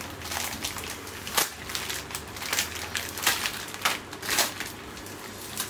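Plastic biscuit-packet wrappers crinkling as they are handled, a string of irregular sharp crackles.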